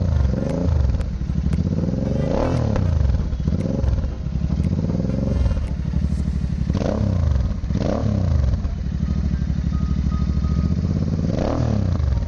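Royal Enfield Interceptor 650 parallel-twin engine running through an aftermarket exhaust with no dB killer, idling and revved in quick throttle blips about five times, the pitch dropping and sweeping back up with each blip.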